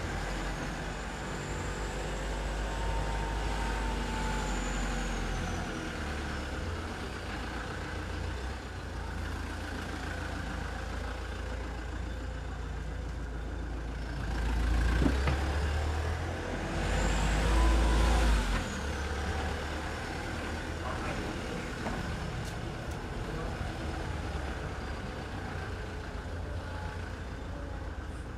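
Street traffic: a steady low engine rumble, with vehicles passing by, the loudest passes about fifteen and eighteen seconds in.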